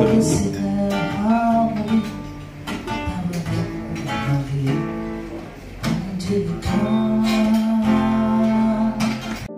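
Acoustic guitar strummed and picked with a voice singing along, played live through a small PA. The music changes abruptly at the very end.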